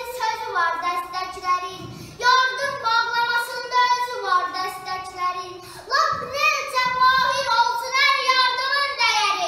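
A child singing unaccompanied in long held high notes, with new phrases starting about two seconds in and again about six seconds in.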